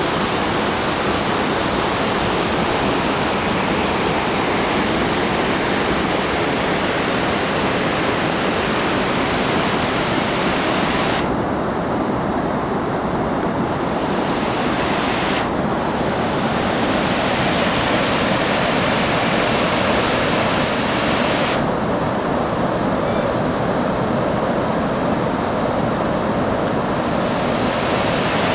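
Waterfall rushing steadily. Twice the high part of the hiss drops away abruptly for a few seconds, leaving a duller rush, then comes back.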